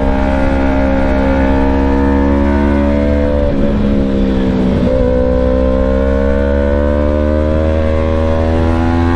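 Yamaha YZF-R3's parallel-twin engine running under way. The revs dip briefly about four seconds in, then climb steadily.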